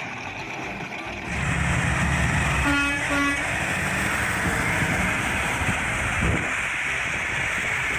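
Vehicle running noise that gets louder about a second in, with two short horn toots close together near the middle.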